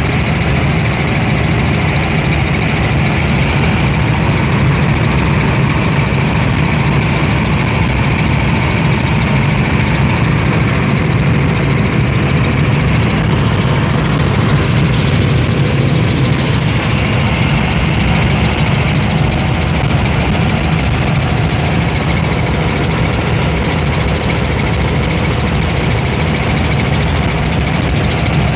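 Helicopter engine and rotor noise heard from inside the cabin in flight: a loud, steady drone.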